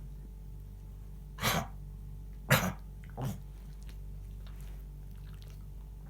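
Three short coughs in quick succession, the middle one the loudest.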